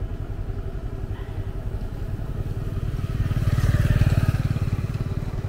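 Small motorbike engine running at low road speed, with a steady, even beat of firing pulses. It grows louder for a second or so about three seconds in, then eases back.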